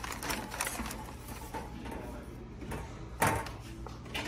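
Sheets of paper rustling as a stack of files is leafed through in a hanging-file drawer. About three seconds in, a desk drawer shuts with a sharp knock, and near the end another drawer is pulled open with a smaller knock.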